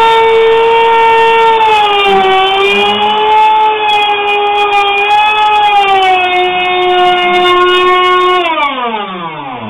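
Handheld electric plunge router running at full speed as it mills a groove in a board: a loud, steady high whine whose pitch dips slightly while cutting. About eight and a half seconds in it is switched off, and the whine falls in pitch as the motor spins down.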